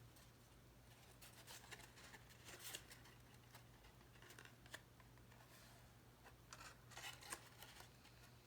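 Faint rustling and light ticks of cardstock being handled as a folded paper box's tabs are glued together, over a low steady hum.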